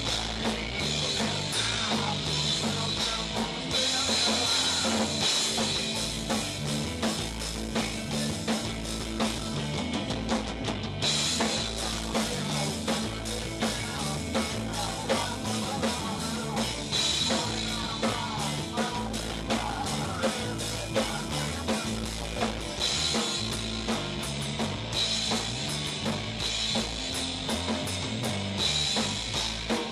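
Rock music played by a band: a drum kit keeping a steady beat under guitar and bass.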